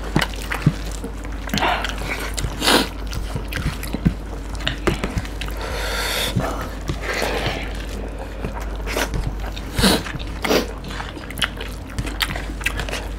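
Close-up eating sounds of two people eating rice with fish curry by hand: wet chewing, lip smacks and squelches, with many short irregular clicks.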